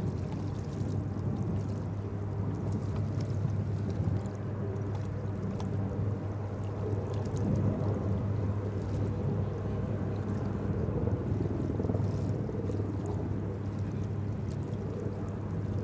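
Boat engines running steadily on the water, a continuous low drone that holds its pitch and level throughout.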